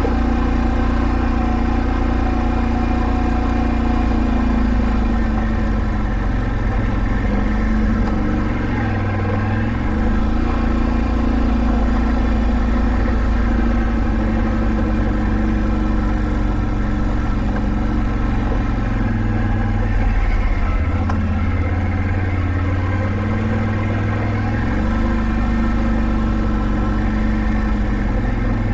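Can-Am Outlander 570 ATV's V-twin engine running steadily while riding, its note dipping and rising again several times as the throttle eases off and opens.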